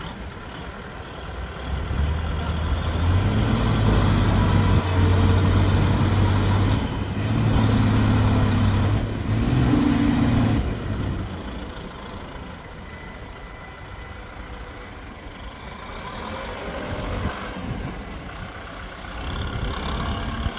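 Heavy diesel engine working hard under load: it revs up strongly about two seconds in, its pitch stepping higher in surges, then drops back to a quieter running sound after about ten seconds.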